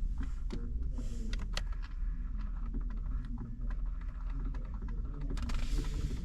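Light, irregular taps and clicks of fingers working the Pioneer head unit's touchscreen, over a low steady rumble.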